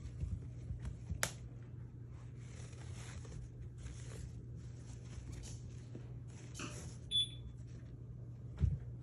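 Kittens scuffling and pouncing on a carpet runner after a wand toy: soft scratchy rustles of paws and the toy over a steady low hum, with a sharp click about a second in and low thumps near the end. A short, single high beep sounds about seven seconds in.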